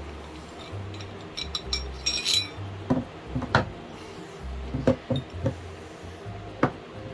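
Steel parts of an old monkey wrench clinking and knocking as it is taken apart: a few light metallic clinks, then about six sharper knocks spread over several seconds. Background music with a steady bass runs underneath.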